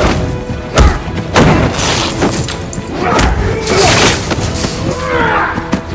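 Fight-scene sound effects of several hard punches and body impacts, a few heavy thuds about a second apart, over the film's action music score.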